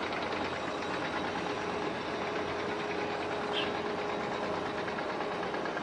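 A boat engine running steadily, a continuous drone with an even hum, and a brief high chirp about three and a half seconds in.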